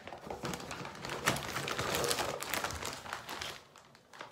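Clear plastic zip-top bag crinkling and rustling as toiletries are pushed into it, dying down near the end.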